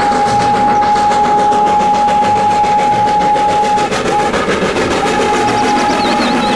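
Steam locomotive dressed as Thomas the Tank Engine running by with its coaches. It chuffs fast and evenly under a long steady whistle, which breaks off for about a second some four seconds in, then sounds again.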